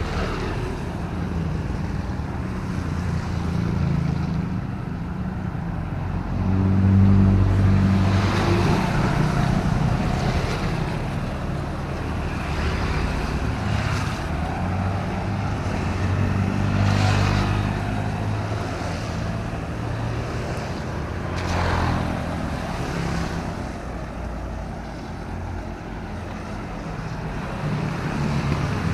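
Traffic passing on wet city roads: engines humming with tyre hiss off the wet surface, vehicles swelling past about seven, seventeen and twenty-two seconds in.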